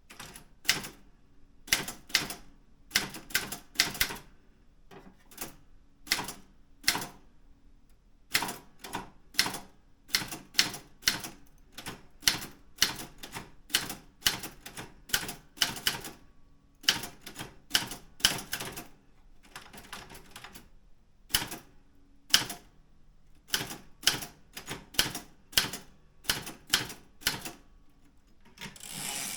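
Daro Optima M16 manual typewriter being typed on: sharp key strikes in uneven runs of one to three a second, with a short pause about two-thirds of the way through and a longer rising rush of noise near the end.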